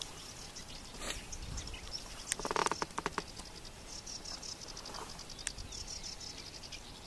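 Insects chirring in meadow grass: a fast, even run of high ticks through the second half. About two and a half seconds in there is a short, louder burst of clicking and rattling.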